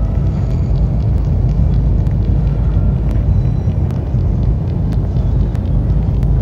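Steady deep rumble of a giant bucket chain excavator, with faint scattered metallic ticks and a couple of brief faint squeals above it.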